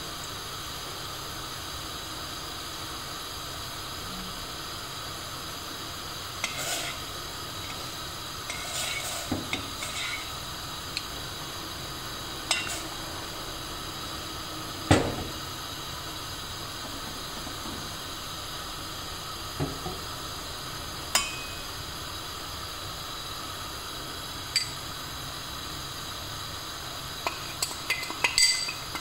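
Metal spoon stirring in a stainless steel pot of warming milk and cream, knocking against the pot now and then: a scattered handful of clinks over a steady faint hiss, the loudest about halfway, and a quicker run of clinks near the end.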